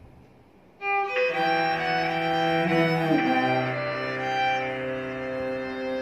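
Electric violin and cello playing a slow melody together with long bowed notes. The music is faint at first and comes in loudly about a second in, with one note sliding downward about three seconds in.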